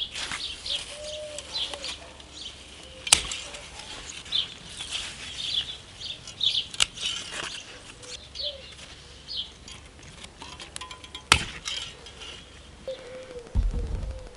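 Small birds chirping over and over, with a dove giving a low coo now and then. Three sharp clicks are spread through it, and there are a few low bumps near the end.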